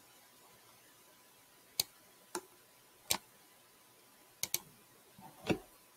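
Computer mouse clicks: about six short, sharp clicks at uneven intervals, including a quick double click about four and a half seconds in, and a duller thump among them about five and a half seconds in.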